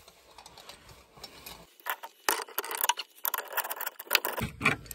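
Irregular sharp metallic clicks and rattles of a spanner and a brass compression fitting as an isolation valve is unscrewed from a copper pipe. They begin about two seconds in and come thicker near the end.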